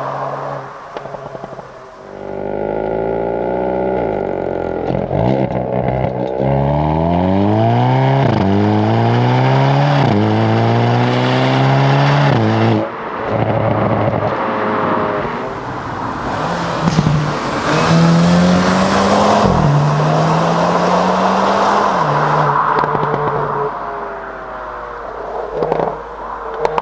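Hyundai Kona N's turbocharged 2.0-litre four-cylinder accelerating hard, revs climbing and dropping four times as the 8-speed dual-clutch gearbox shifts up, then cutting off sharply. The engine then runs on at part throttle with a few sharp exhaust pops.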